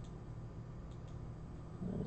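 A few faint computer mouse clicks over a steady low hum, with a short, louder low thump near the end.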